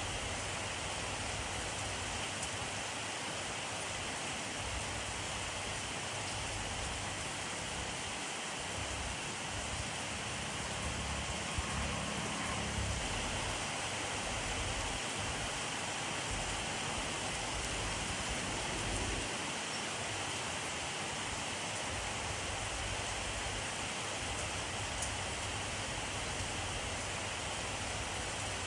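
Steady rainfall, an even hiss of rain coming down on surfaces. A soft low rumble swells briefly about halfway through.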